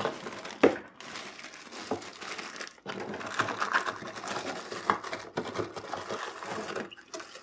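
Plastic bags and cardboard packaging crinkling and rustling as accessories are taken out of a camera box, with a few sharp knocks.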